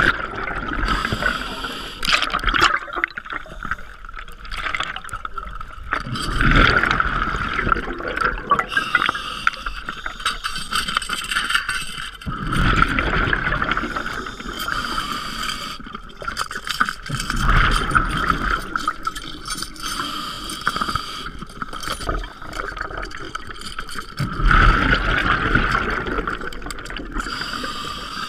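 Scuba diver breathing through a regulator underwater: a rush of exhaled bubbles about every five to six seconds, with a steady quieter hiss between breaths.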